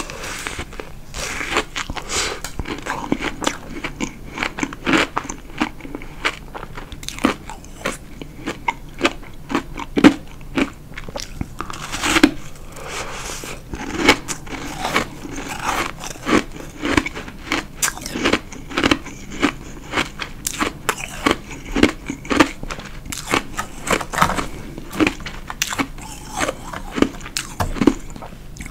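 A person biting and chewing chunks of white powdery ice: a steady run of sharp crunches and crackles, a few a second.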